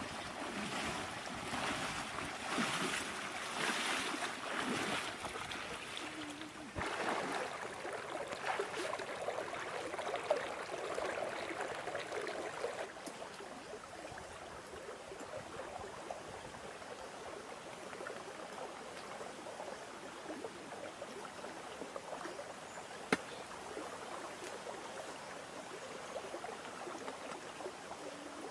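Running water: louder, uneven surges of splashing water in the first dozen seconds, then a steadier, quieter trickling flow, with a single sharp click near the end.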